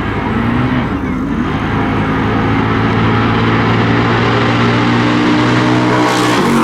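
Car engine running at a steady pitch, rising briefly near the end before dropping off.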